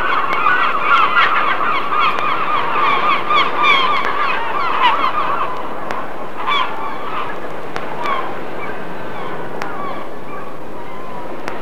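Seagulls calling: many short, pitch-bending calls in quick succession for about the first five seconds, then fewer scattered calls over a steady background noise.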